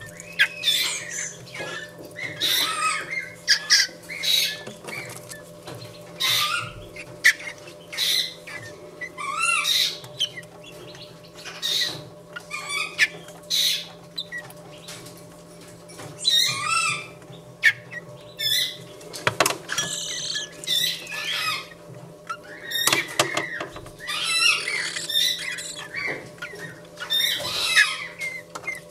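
Fledgling Eurasian blackbirds begging for food as they are hand-fed: short, rasping, high-pitched calls, repeated every second or so, over a steady low hum.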